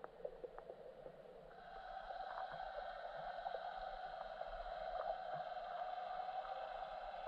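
Underwater lake ambience picked up by a submerged camera: a steady, muffled hum that grows stronger about a second and a half in, with a few faint clicks in the first second.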